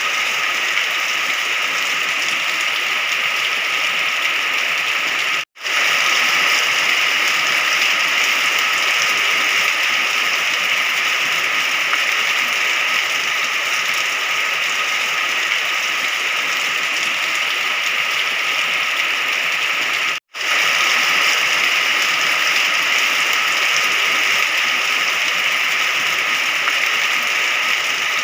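Steady heavy rain, an even hiss, that cuts out for an instant twice, about five seconds in and again about twenty seconds in.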